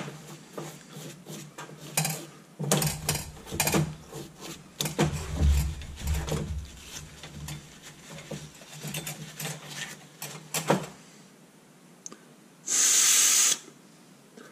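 A small brush scrubbing a moped fuel tap's body clean with petrol, in quick, irregular scratchy strokes, with some rag handling. Near the end comes a single short, loud hiss.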